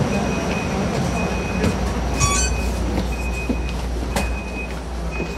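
TTC streetcar running on its rails: a steady low rumble with a high wheel squeal that comes and goes, a brief louder squeal about two seconds in, and a few sharp clicks.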